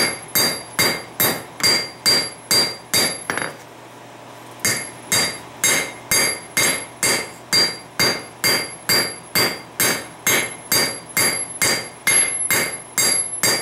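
Hand hammer forging a red-hot steel ball peen hammer head on an anvil: steady blows about two and a half a second, each with a bright metallic ring, as the head is flattened and widened. The hammering pauses for about a second some three and a half seconds in, then resumes.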